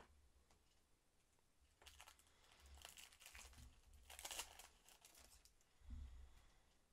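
Foil trading-card packet crinkling in the hands and being torn open, with the loudest rip about four seconds in, followed by a soft thump.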